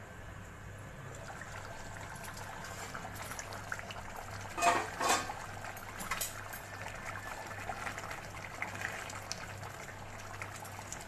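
Chicken hariyali gravy simmering and bubbling in a kadhai, with two loud knocks close together about five seconds in and a spatula stirring through the gravy near the end.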